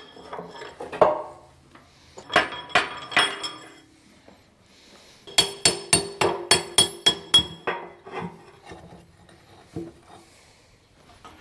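Hammer striking a steel bucket pin to drive it out, sharp ringing metal-on-metal blows. A few strikes come early, then a quick run of about ten blows, roughly four a second, about halfway through.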